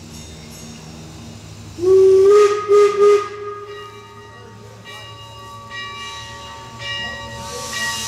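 Steam locomotive whistle: one long blast followed by two short toots, then steam hissing that grows louder near the end.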